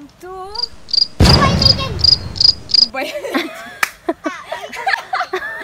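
An insect chirping in a quick regular series of short high chirps, about three a second, for a couple of seconds. It is joined by a loud burst of noise and then by laughing voices.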